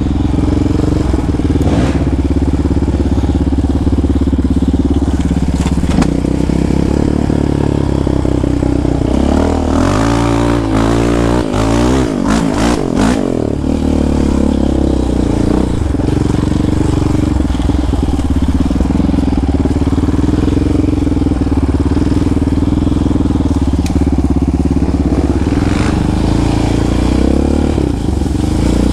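Yamaha Raptor 700R quad's single-cylinder four-stroke engine running steadily under way. Its pitch rises and falls between about ten and thirteen seconds in as the throttle is worked, with a few sharp knocks there.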